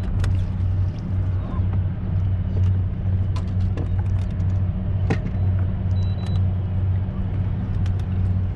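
Boat motor running at a steady low hum that pulses slightly, with scattered light clicks and taps over it.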